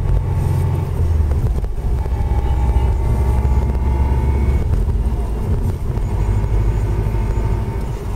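Subaru Impreza WRX on the move, heard from inside the cabin: a steady low engine and road rumble with a faint whine above it that drifts slightly in pitch. The whine comes from worn centre differential bearings in the 5-speed gearbox, a noise that speeds up with the car and holds through gear changes.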